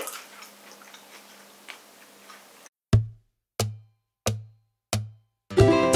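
Faint room noise with a low steady hum, then four evenly spaced beats of a music intro, each a sharp click over a short low thump, about two-thirds of a second apart. A ukulele tune starts just before the end.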